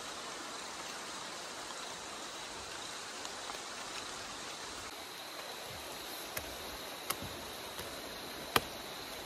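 Steady hiss of distant running water, with a thin high insect drone over it. A few sharp knocks come in the second half.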